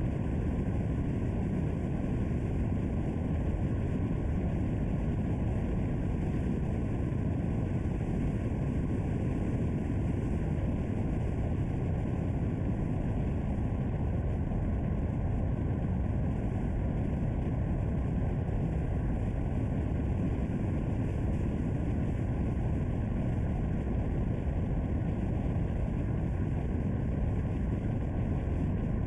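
Steady low rumble of a car driving: engine, tyre and wind noise at an even level, with no change in pace.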